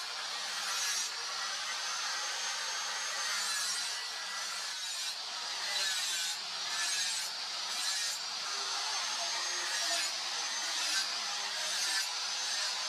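Angle grinder running with its wheel pressed on a steel machete blade: a steady grinding rasp with a high, slightly wavering whine from the wheel.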